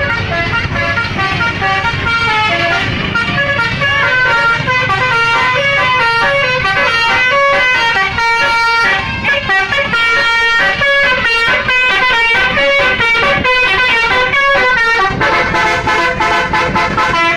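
Indonesian bus "telolet" basuri musical air horn playing a long, loud melody of short stepped notes, quickest in the middle stretch.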